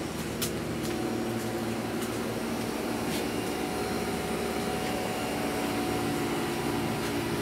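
Steady whirring hum of the cooling fans on a 3D printer converted to a laser engraver, with a few faint clicks in the first few seconds.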